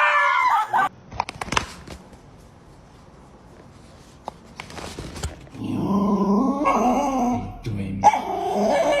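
A dog vocalizing in long, wavering sounds through the second half, after a few sharp knocks about a second in and a quiet stretch.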